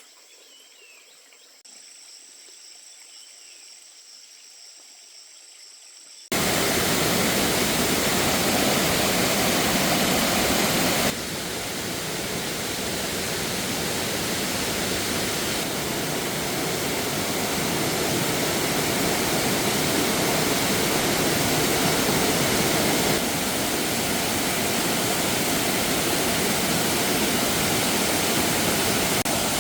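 Crickets or other insects trilling faintly, then, about six seconds in, loud steady rushing water that cuts in abruptly and holds, with sudden small jumps in level where the footage is cut.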